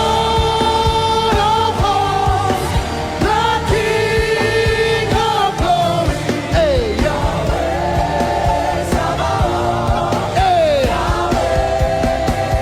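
Live gospel worship music: a lead voice singing long held notes with gliding phrases over a full band, with other voices joining.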